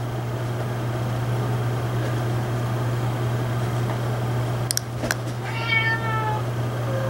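A cat meows once, a drawn-out call falling slightly in pitch about five and a half seconds in, over a steady low hum. Two sharp clicks come just before it.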